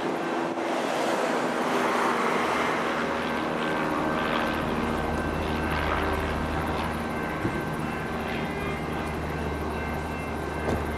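Electric suburban train running through the station: a steady high motor whine over a haze of wheel and track noise, loudest a couple of seconds in.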